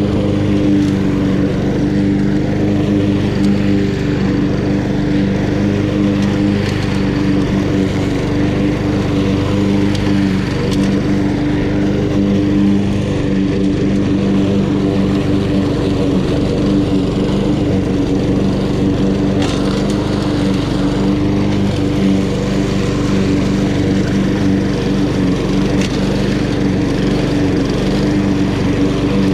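Honda HRN216 walk-behind lawn mower with its single-cylinder GCV170 engine, running steadily at a constant speed while mowing grass.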